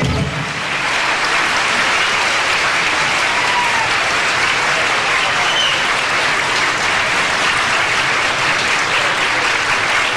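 Audience applauding steadily after a song; the last of the music cuts off right at the start.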